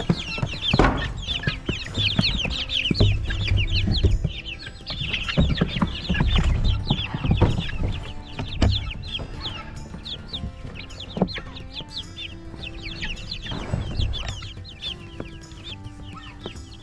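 A flock of young meat chickens peeping: many quick, high, downward-sliding peeps overlapping, busiest in the first half and thinning out toward the end, over low rumbling thuds.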